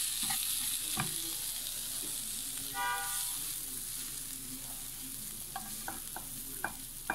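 Food sizzling in a frying pan while a wooden spatula stirs it and then scrapes it out into a glass bowl, with a few sharp knocks and clicks of the spatula against the pan. A short tone sounds about three seconds in.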